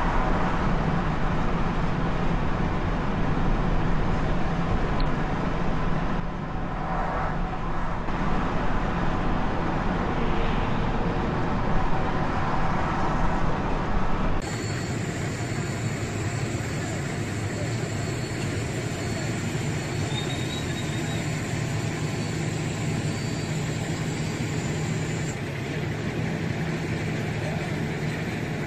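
Steady engine and road noise of a car driving on a wet road, heard from inside through a dashcam. About halfway it cuts abruptly to quieter street traffic noise with a thin, steady high-pitched whine.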